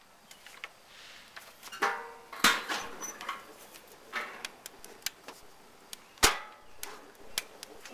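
A handful of sharp metal clanks and knocks as a gas grill's lid is raised and a small metal charcloth tin is set down on the steel grate.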